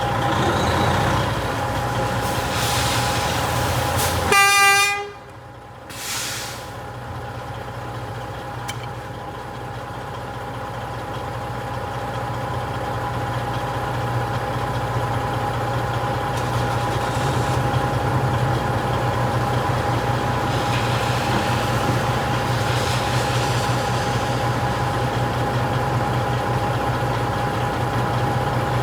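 Diesel truck engine running steadily with a thin steady whine over it, and a short loud horn blast about four seconds in, after which the sound drops away suddenly and slowly builds back up.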